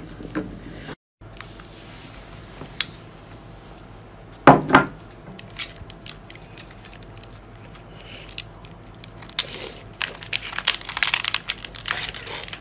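Close-up mouth sounds of seafood being eaten. There is one loud bite about four and a half seconds in, then scattered clicks, and near the end a dense run of crisp crunching and crackling.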